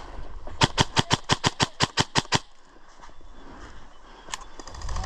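Airsoft gun firing a quick string of about a dozen shots, roughly six or seven a second, then a single shot near the end.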